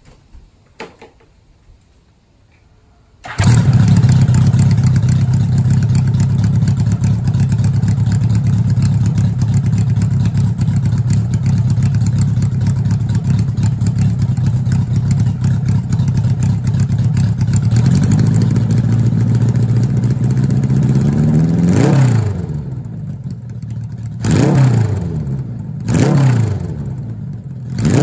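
1982 Honda GL1100 Gold Wing's flat-four engine through slip-on straight pipes, loud and unmuffled: it starts about three seconds in and idles steadily, then is revved up slowly to a peak and blipped three more times near the end, each rev dropping back to idle.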